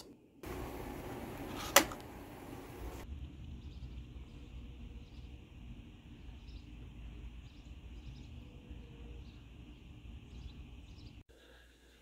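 Quiet outdoor ambience: a low steady rumble with faint, repeated bird chirps. Near the start there is a couple of seconds of louder hiss with a single sharp click. The sound cuts off shortly before the end.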